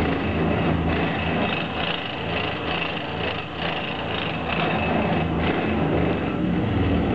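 EWU Rotomat 125 rotation grinding and deburring machine running, its rotating grinding heads making a continuous mechanical noise with a steady high whine over a low hum.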